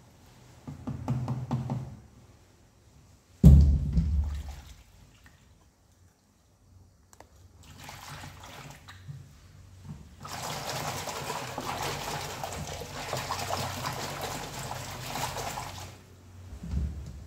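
Dishwashing at a kitchen sink: a few dull knocks of things being handled, one loud knock about three seconds in, then tap water running into a basin for about six seconds before it is turned off.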